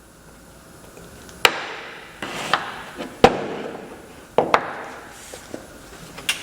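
A handful of sharp wooden knocks and clacks at uneven intervals, the loudest a little past the middle: wooden workpieces and hand tools being struck or set down on a workbench.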